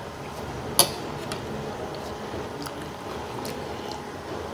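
People eating momos and chowmein, with quiet chewing and mouth sounds. There is a sharp clink of cutlery on a dish about a second in, and a few fainter clicks after it.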